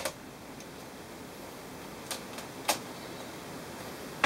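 A few short, sharp plastic clicks from an HP G60 laptop's case and keyboard being handled during a teardown, over a steady background hiss.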